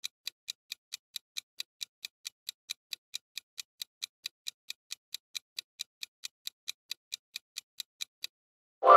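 Clock-tick countdown timer sound effect, even sharp ticks about four to five a second, stopping shortly before the end. A bright ringing tone then sounds right at the end, louder than the ticks.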